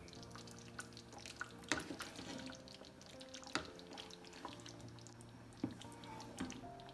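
Thick tomato sauce being stirred in a frying pan with a wooden spoon: a few short, sharp plops and taps, roughly every two seconds, over faint background music.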